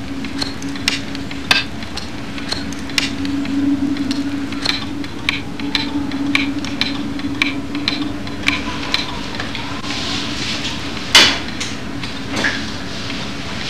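A steady run of light, sharp metallic clicks, about two a second, over a low steady hum, with one louder knock about eleven seconds in.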